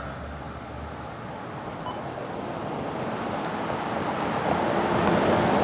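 Steady outdoor rushing noise, slowly growing louder, with no siren tone or voice sounding.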